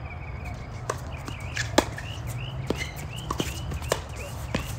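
Tennis rackets striking the ball and the ball bouncing during a doubles point: a serve about a second in, then a quick exchange of sharp pops, the loudest about two seconds in, with volleys coming faster near the end.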